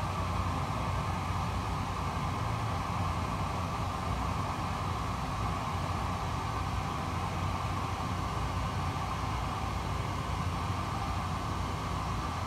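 Steady whirring hum and hiss of a fan or motor running, unchanging throughout.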